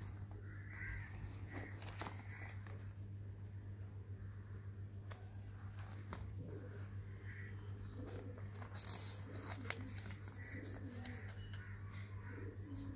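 Faint handling noise of a polyester sling bag and its card hang tag: soft rustles and scattered light clicks, over a steady low hum.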